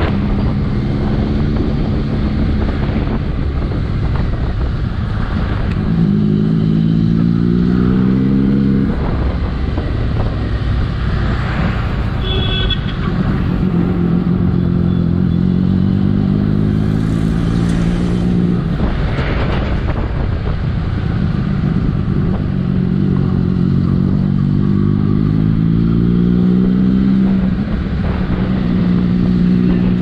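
Motorcycle engine heard on board while riding, climbing in pitch under acceleration several times and dropping back as gears change, with wind rushing past. A brief high tone sounds about twelve seconds in.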